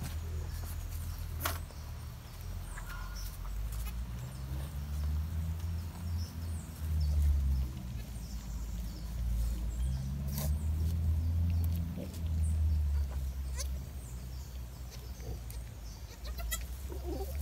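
Boer goats bleating faintly a few times, one call near the end, over a loud low rumble.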